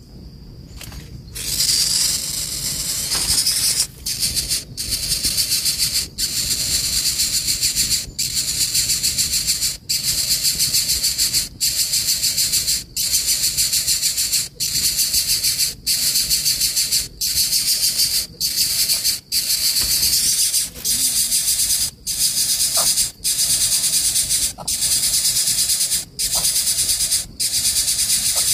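Coucal nestling hissing: long, harsh hisses repeated over and over, each cut by a short break about every second and a half.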